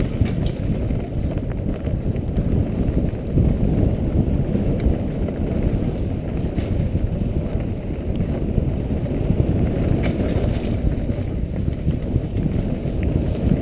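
Wind buffeting and low rumble on a helmet-mounted camera during a fast mountain-bike descent, mixed with the tyres running over dirt singletrack. A few faint clicks and knocks come from the bike over bumps.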